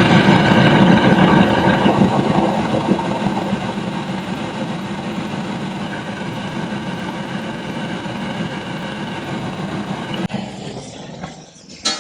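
Gas torch flame burning steadily while a steel part is heated to expand it for an interference fit; the sound slowly fades, stops about ten seconds in, and is followed near the end by a couple of sharp metal clinks.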